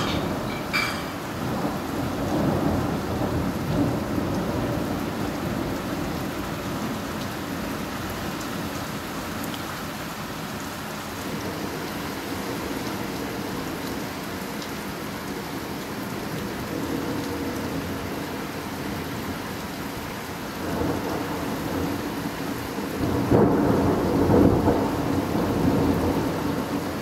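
Steady rain falling, with rolling thunder: a rumble in the first few seconds and a louder, longer roll near the end.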